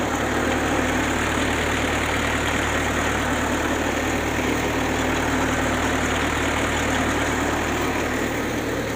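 Engine running steadily, turning a brick-extruding machine through a reduction gearbox and drive shaft; the machine is running empty, its clay used up.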